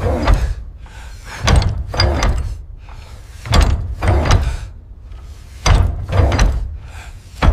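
Heavy hammer blows on metal, mostly in pairs about half a second apart and repeating every two seconds or so, each with a deep boom and a short ringing tail.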